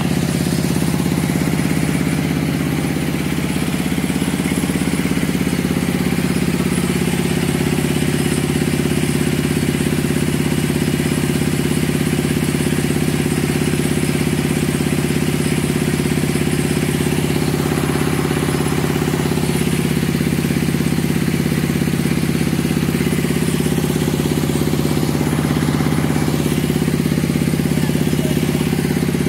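An engine running steadily at one constant speed, a low, unbroken drone with no revving.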